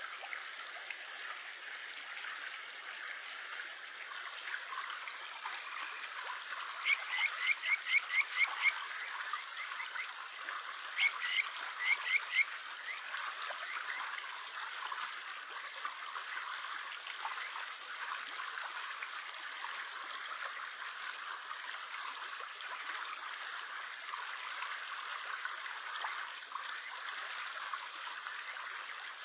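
Japanese stream frog (kajika frog, Buergeria buergeri) calling: a quick run of about eight short rising whistle-like notes, then a shorter run of four or five a few seconds later. The steady rush of a shallow stream runs underneath.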